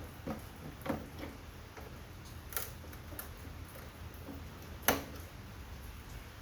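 Scattered clicks and snaps from cutting and handling the metal and plastic parts of an air-conditioner unit, with one sharp snap about five seconds in.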